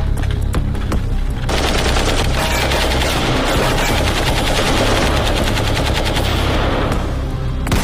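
Sustained rapid automatic gunfire, shot after shot with no break, over a low rumble. It thickens about a second and a half in and stops near the end.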